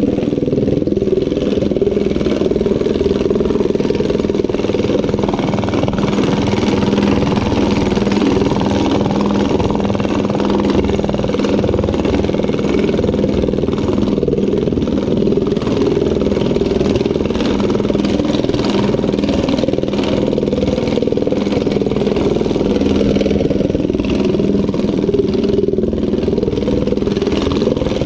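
Power hammer running steadily, rapidly striking a sheet-metal panel over a high-crown, nylon-topped lower die while the panel is moved about beneath it, with a constant machine hum.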